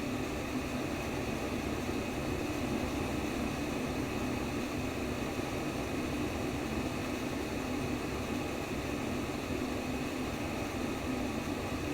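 Steady white noise for baby sleep: an even, unchanging rush with no rhythm or breaks.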